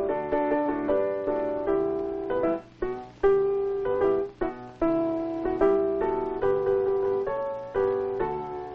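Piano music: a melody of held notes with chords beneath, broken by two short pauses.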